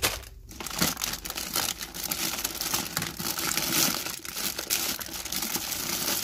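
Clear plastic bags crinkling and rustling as a hand rummages through bagged items in a drawer: a dense, continuous crackle.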